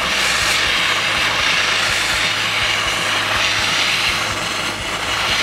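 Handheld gas torch burning with a steady hiss. Its flame is heating a thick aluminum plate so that the Alumaloy brazing rod will flow through the joint.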